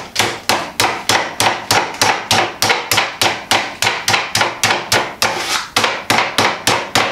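Wooden rolling pin bashing a chicken breast sealed in a greaseproof-paper seasoning pack on a wooden chopping board: a rapid, steady run of thuds, about four a second, flattening and tenderising the meat.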